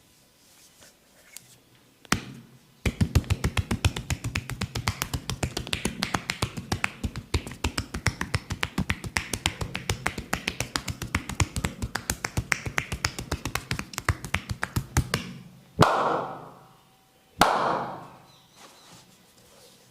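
Percussive massage strokes: rapid, even tapping on the body at several strikes a second for about twelve seconds. Two louder slaps follow near the end, about a second and a half apart, each ringing out briefly.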